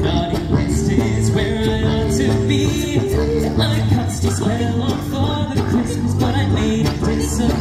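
A small chorus singing a song over instrumental backing music with a steady beat.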